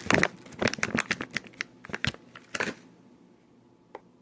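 A packet of bacon pieces crinkling and rustling as the bacon bits are shaken out onto the salad, a quick run of small rustles and clicks that stops about three seconds in.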